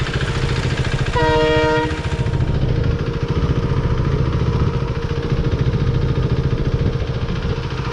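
Single-cylinder KTM RC390 engine running steadily at low speed, with a vehicle horn sounding once, briefly, about a second in.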